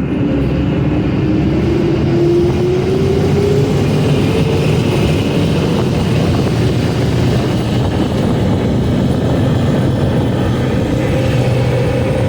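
Duck boat amphibious vehicle running as it drives along, a loud steady drone with a whine that rises in pitch over the first few seconds as it picks up speed.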